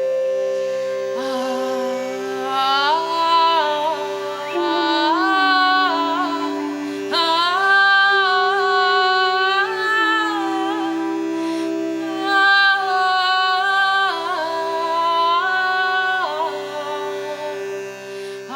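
Live mantra music: a melody line holding notes and sliding between them in an Indian devotional style, over several steady sustained drone tones.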